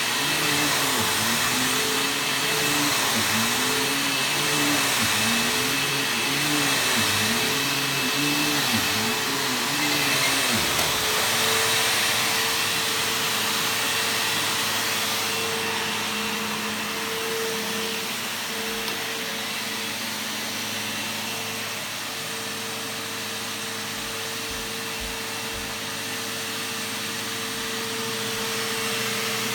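Bissell bagless upright vacuum cleaner running on carpet. For the first ten seconds its motor pitch swings up and down about once a second as it is pushed back and forth, then it settles to a steady even tone.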